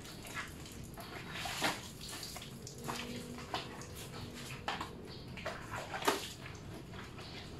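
Water thrown from a container splashing onto a motor scooter and a wet tiled floor, in irregular splashes over a steady wash of water noise.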